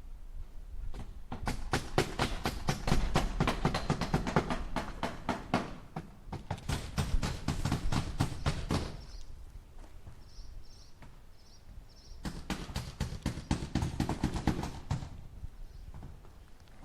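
Hammer striking nails into wood in three quick runs of rapid, even blows, about five a second, with short pauses between the runs.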